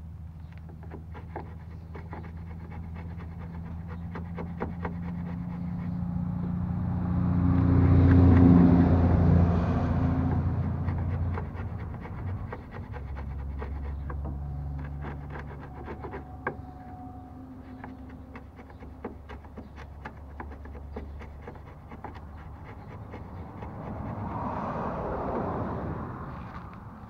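Steel hand chisel paring wood, a run of small sharp clicks and scrapes as the notch is cut. Under it a low droning hum swells to its loudest about a third of the way in and fades, with a smaller swell near the end.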